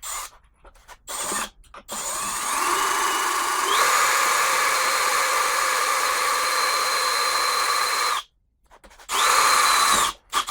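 A power drill with a 3/16-inch bit drilling into the snowblower's metal housing, to stop the crack from spreading further. A few short trigger blips come first, then about six seconds of steady drilling whose motor whine steps up in pitch before cutting off sharply. One more short burst follows near the end.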